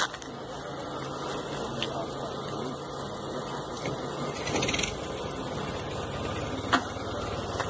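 A vehicle engine idling steadily with a low hum under a haze of background noise. A single sharp click sounds near the end.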